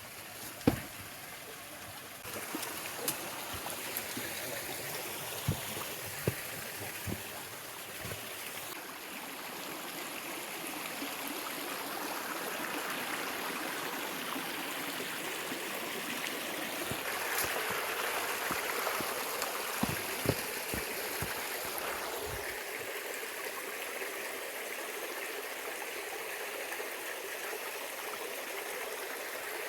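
Stream water running steadily, with a few short sharp knocks near the start and again around twenty seconds in.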